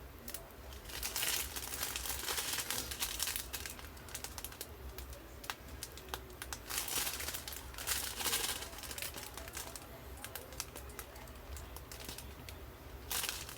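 Small plastic bags of diamond painting resin drills crinkling as they are handled, with scattered small clicks from the drills shifting inside.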